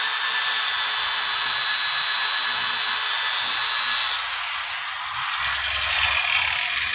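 Angle grinder with a sandpaper disc sanding the face of a spinning Toyota Kijang brake disc rotor, a steady grinding hiss, smoothing the scored rotor so the brakes grip fully. The sound changes in character about four seconds in.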